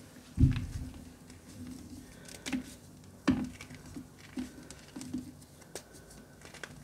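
Reformed gym chalk being crushed: irregular soft crunches and crumbling clicks. The strongest is a dull thump about half a second in, with another firm crunch about three seconds in.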